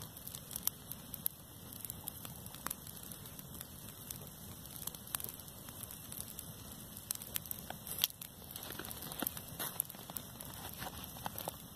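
Dry grass burning: a steady hissing crackle with many sharp pops and snaps, busiest in the second half.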